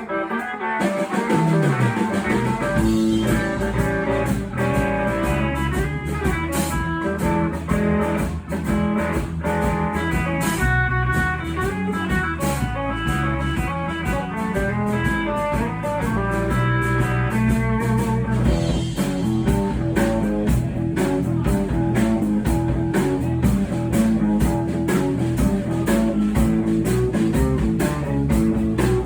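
Live blues band playing without singing: electric guitar leading over bass and a drum kit, at a steady level.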